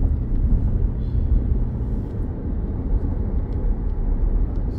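Steady low road and engine rumble of a small SUV, heard from inside the cabin while driving.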